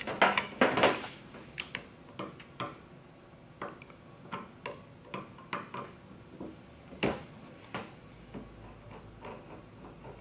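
A screwdriver backs screws out of a plastic fuel pump assembly. A scrape and rustle in the first second is followed by light, irregular clicks and taps as the screws and plastic parts are handled, with one sharper click about seven seconds in.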